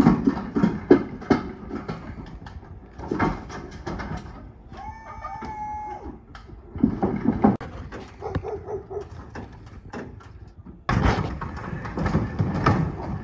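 Clunks, knocks and rattles of an electric pallet jack moving a wooden-crated bandsaw mill over a box truck's floor and lift gate, with a short pitched whine about five seconds in; the sound gets suddenly louder near the end as the jack rolls the crate across concrete.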